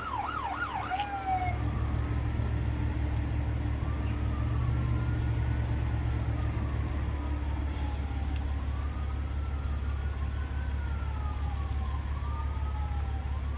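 Emergency vehicle siren sounding: a fast yelp switches about a second in to a slow wail that rises and falls every two to three seconds, over a steady low rumble.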